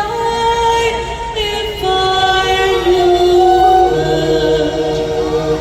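Choir singing long held notes that change pitch slowly, with a low sustained note joining about four seconds in.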